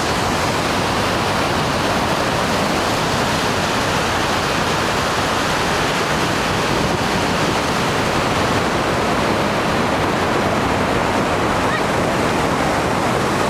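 Niagara Falls and the river rapids at its brink: a steady, loud rush of falling and churning water with no let-up.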